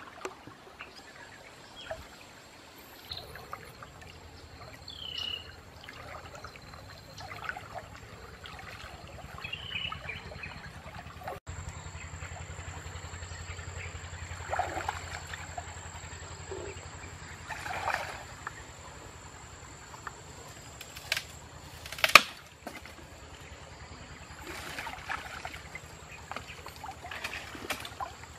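Water sloshing and splashing around a person wading through a river, in separate splashes every few seconds, with one sharp knock a little past two-thirds through.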